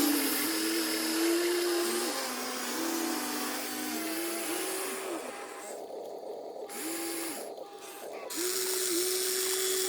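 Small electric gear motors of radio-controlled model vehicles whining in runs of one to two seconds, starting, stopping and stepping between a higher and a lower pitch, with short pauses about six and seven and a half seconds in.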